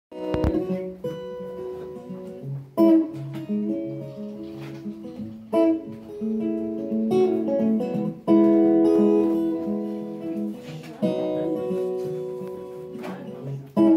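Acoustic guitar played live: chords struck every two to three seconds over a moving bass line, the instrumental intro before the singing begins.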